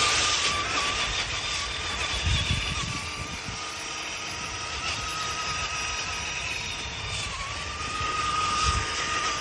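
Traxxas Rustler RC truck's motor whining at a steady, slightly wavering pitch as it drifts in circles with its wheels spinning through snow.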